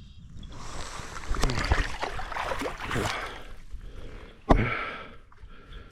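Water splashing and sloshing in irregular bursts, with one sharp knock about four and a half seconds in that is the loudest sound.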